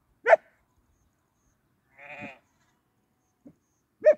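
Sheep bleating: a few separate short calls, spaced a second or two apart.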